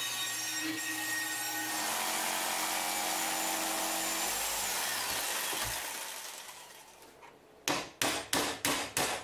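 A bandsaw cutting plywood, then a jigsaw cutting plywood, its noise fading out about two thirds of the way through. Near the end, a wooden mallet knocks a bolt into a wooden block, about five quick blows.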